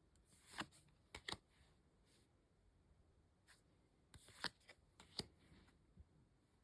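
Faint handling of Magic: The Gathering playing cards: short snaps and swishes as cards are slid off the stack and flicked past, in a cluster near the start and another after about four seconds.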